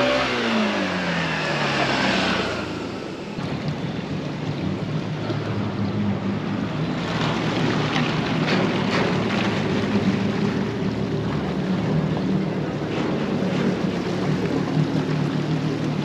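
A motor vehicle passes close by, its engine pitch falling over the first two seconds. Then comes a steady drone of small motorboat outboards and jet skis running along the harbour channel.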